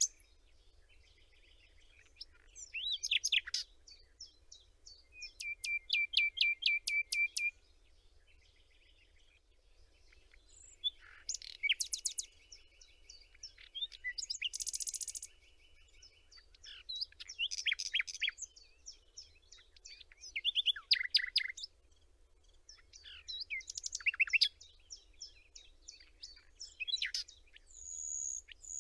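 Songbirds singing in short, varied phrases a few seconds apart. Some phrases are quick runs of repeated notes or trills.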